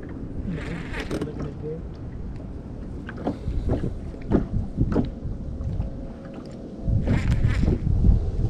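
Wind rumbling on the microphone, with scattered light knocks and clicks from a baitcasting rod and reel being handled in an aluminium boat. The wind rumble gets much stronger about seven seconds in.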